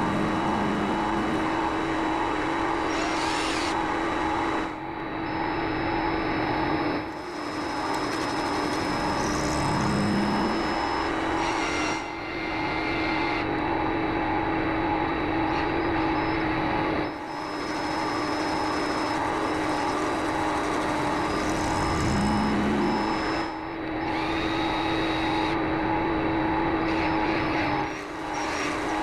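Vevor MX400 mini lathe running with a steady motor and gear whine while a tool cuts an angle on a workpiece. The sound dips briefly every four to six seconds.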